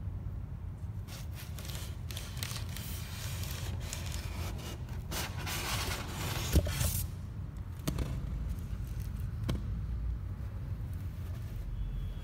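Scraping, rustling noise for several seconds, with a sharp knock about six and a half seconds in and two lighter clicks afterwards, over a steady low rumble.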